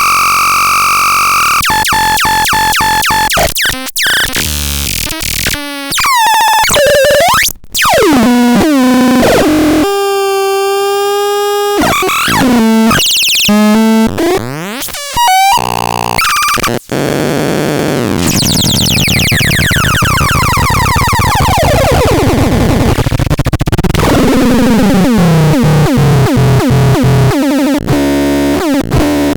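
Petit Chat synthesizer producing harsh, glitchy electronic tones: rapid chirps and stepped pitch sweeps, a few seconds of held steady tones about ten seconds in, then a long noisy passage of swirling pitch sweeps before choppy chirps return near the end.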